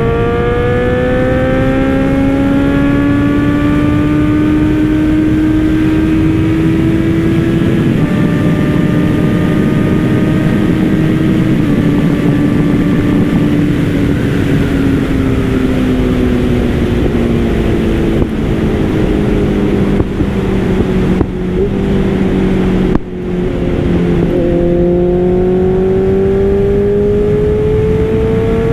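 Honda CBR650F's inline-four engine under way, fitted with a Hurricane cloth air filter. It accelerates with the pitch climbing in steps through the gears, eases off and slows in the middle, then pulls again near the end.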